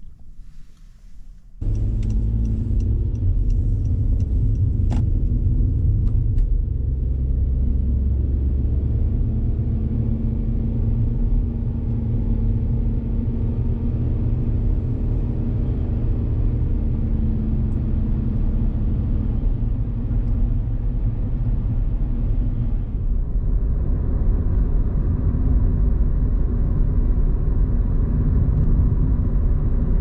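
Strong wind buffeting the microphone: a loud, steady low rumble that starts abruptly about a second and a half in.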